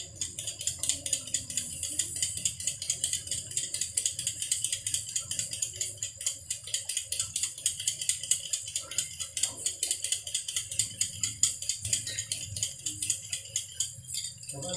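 A carrot being shaved into thin strips with a hand-held vegetable peeler: quick, even scraping strokes, several a second.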